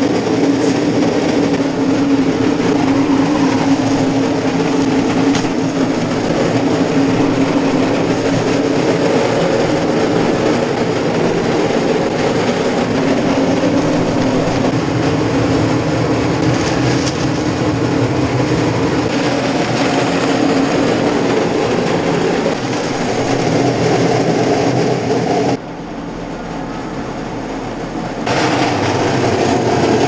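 Gruber electric feed mill running steadily with a loud mechanical drone and rattle as it grinds feed. The noise dips for a couple of seconds near the end, then comes back.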